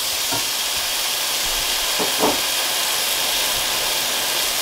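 Ground spice masala and onions sizzling in hot oil in a pot, a steady hiss, with a couple of faint scrapes of a wooden spatula stirring.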